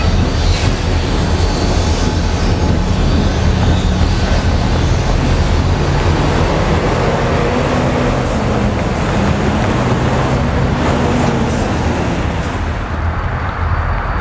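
Freight train rolling by: a steady rumble with a low diesel engine drone and a few faint clanks. It eases off near the end.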